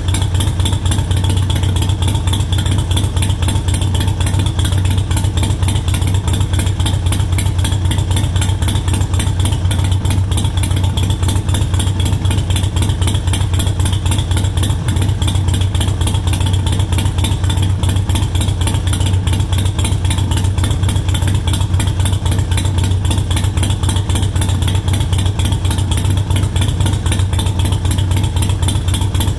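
2018 Harley-Davidson Sportster Iron 883's air-cooled V-twin idling steadily through a Cobra Speedster Short exhaust, with an even stream of exhaust pulses and no revving. Its idle is lowered to 800 rpm by a Vance & Hines Fuelpak FP3 tune.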